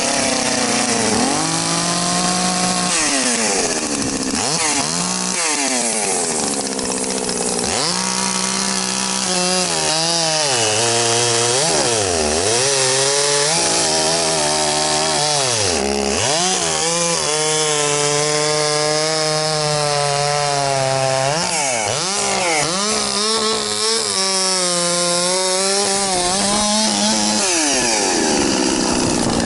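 New Zomax 6510 two-stroke chainsaw run in on a small log, its engine revving up and dropping back over and over. Its pitch holds high through each cut and sags to a low idle between cuts.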